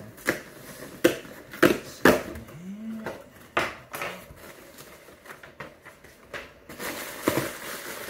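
Cardboard shipping box being opened by hand: packing tape pulled off and the flaps folded back, with sharp snaps and crackles of cardboard, loudest in the first two seconds, then lighter rustling of the box and its packing.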